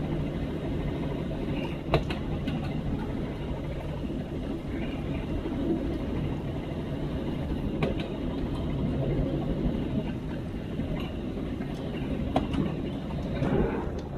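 LXD2 narrow-gauge diesel locomotive running along the line, a steady low rumble of engine and wheels on the track. A few sharp knocks break through it, the loudest about two seconds in.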